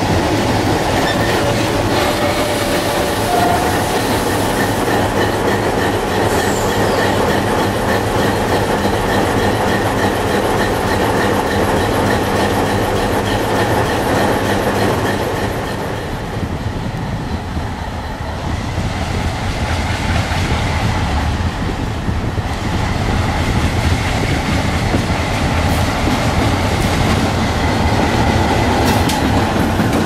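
A lash-up of ALCo diesel locomotives rolling past at close range: diesel engines running with a steady low drone over the sound of wheels on the rails. The sound dips for a few seconds about halfway through, then builds again as another locomotive comes by.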